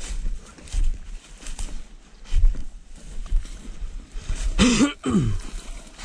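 A rabbit-hunting hound giving two short bays about four and a half seconds in, the second sliding down in pitch, over low thumping and rustling.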